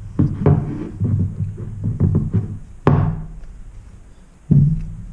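Background music with steady low bass notes and heavy drum hits.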